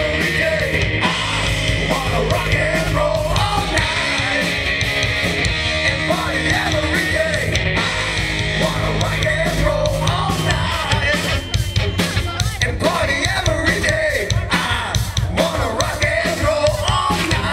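Live band playing a song, a singer over amplified instruments and a steady drum beat.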